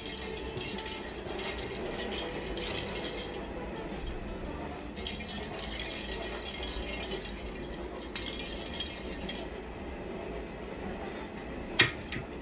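Small plastic cat-toy ball with a bell inside, rattling and jingling in irregular bursts as a cat paws and bats it on the floor. It goes quiet for about two seconds near the end, then gives one sharp knock.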